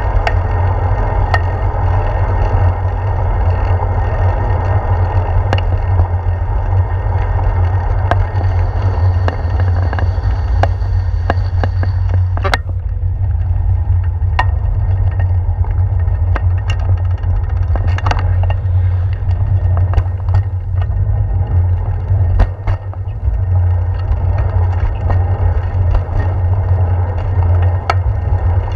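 Bicycle riding along a paved path heard from a handlebar-mounted camera: a steady low wind rumble on the microphone with tyre and road noise, broken by scattered sharp clicks and knocks. The higher hiss thins out about twelve seconds in.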